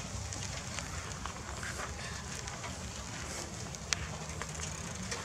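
Bicycle rolling over rough, grassy ground: a steady low rumble and crackle, with light rattles and one sharp click about four seconds in.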